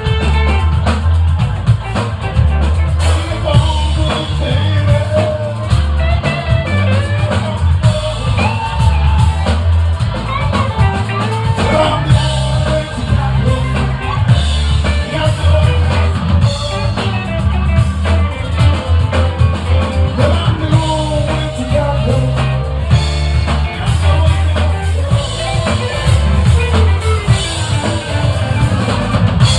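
Live rock band playing loud: singing over electric guitars, bass guitar and a drum kit.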